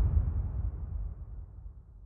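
The low rumbling tail of a boom sound effect, fading steadily away until it is almost gone by the end.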